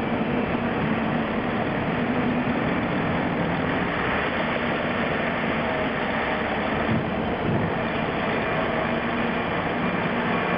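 Steady machinery drone with a faint low hum from a container crane lowering a container on its spreader.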